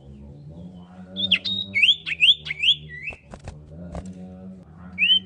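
Common iora (cipow) singing: a quick run of about five short, rising whistled notes beginning about a second in, and another run starting near the end.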